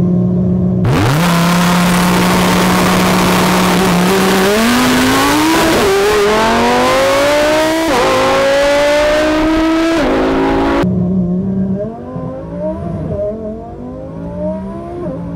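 Twin-turbo 1,100 hp Lamborghini launching from a standstill: the engine is held at one steady pitch for a few seconds under a loud rushing noise, then climbs through the gears with a shift about every two seconds. The rushing noise cuts off suddenly near eleven seconds, and the engine is heard from inside the cabin, quieter, revving up again.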